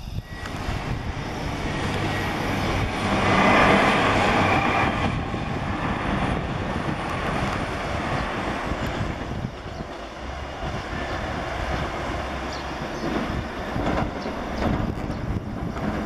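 Anpanman-liveried passenger train running past, a continuous rumble and rattle of wheels on the rails that is loudest about three to five seconds in.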